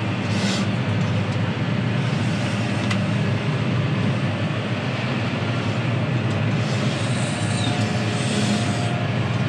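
John Deere 6R tractor engine running steadily under load, heard as a low, even drone from inside the cab.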